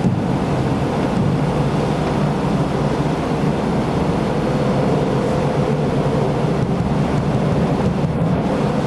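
Steady low rumbling background noise with a faint, even hum, unchanging throughout.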